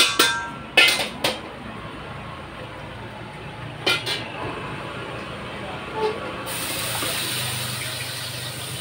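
Metal clinks and clanks of a cooking utensil against a wok, then a steady sizzle of frying starts suddenly about six and a half seconds in.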